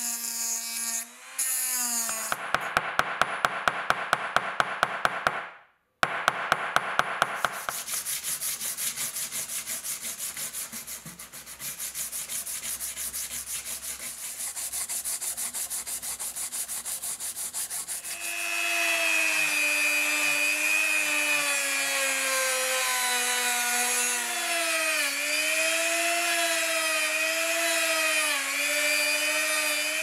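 Rotary tool with a small grinding stone running and grinding down the brass rivet pins of a pocket knife handle, with a dense rapid clicking as it bites. Then sandpaper rubbed back and forth over the handle scale in steady strokes. For the last third a rotary tool whines again, its pitch dipping and recovering under load.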